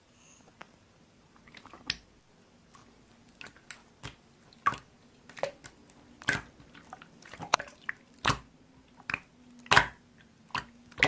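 Slime being squished and poked by hand, giving irregular wet clicks and pops, a few louder ones in the second half.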